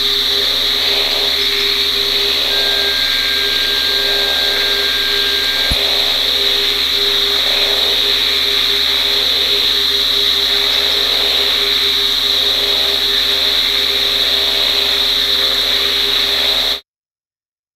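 Dense chorus of many frogs calling together at an explosive breeding aggregation, merging into a steady, unbroken drone with a shrill high layer and a lower pulsing layer. It cuts off suddenly near the end.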